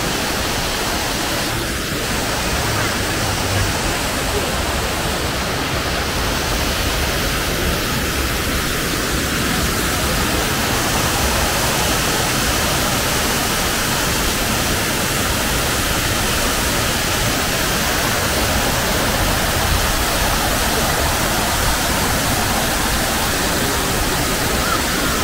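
Waterfall rushing with a loud, steady, even wash of falling water that does not change.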